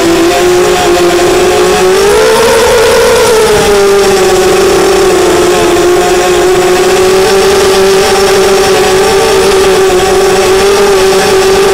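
ZMR250 racing quadcopter's Cobra 2208 2000 kV brushless motors and HQ 5045 propellers whining steadily in flight, the pitch rising briefly about two seconds in and settling back.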